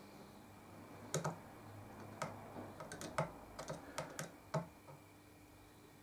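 A run of light, irregular clicks and ticks from a small screwdriver working a trimmer potentiometer on the amplifier board, starting about a second in and stopping shortly before the end.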